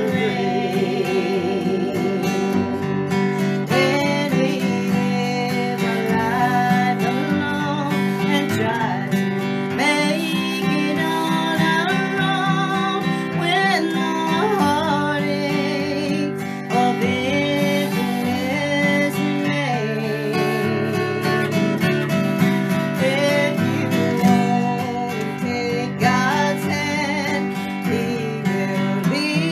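A steel-string acoustic guitar is strummed to accompany a man and a woman singing a country gospel song. Near the start a sung note is held with vibrato.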